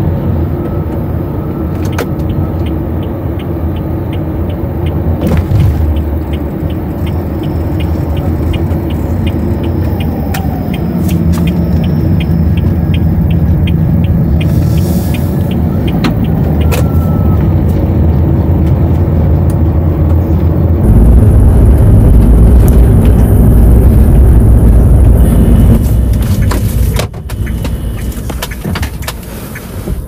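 Car running along the road, heard from inside the cabin: a steady low rumble of engine and tyre noise. The rumble grows heavier about two-thirds of the way through, then drops off a few seconds before the end as the car slows. A light regular ticking is heard for several seconds in the first half.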